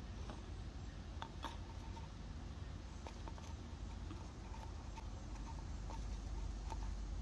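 Light scattered clicks and taps from a plastic pill bottle being handled against an apple branch and its leaves, over a steady low rumble.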